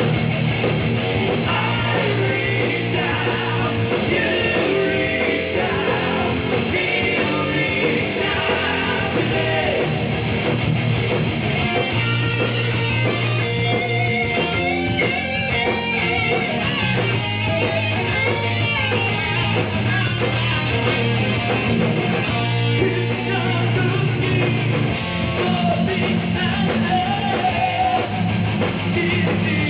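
Heavy metal band playing live at a sound check: loud, distorted electric guitars over bass and drums, with singing, running steadily without a break.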